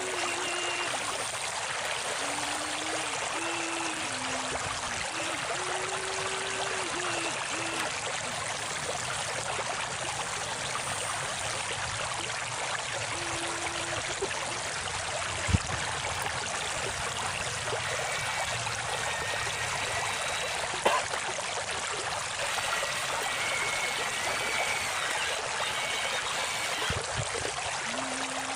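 Steady flowing stream water. Faint humming tones shift up and down in pitch during the first several seconds and again near the end. Two sharp knocks come about fifteen and twenty-one seconds in.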